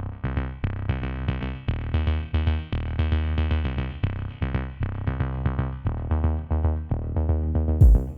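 Electronic background music: synthesizer notes over a steady bass beat.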